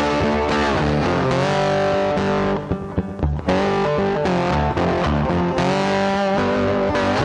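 Background instrumental music led by guitar, its notes sliding and bending over a bass line; the sound thins out briefly about three seconds in.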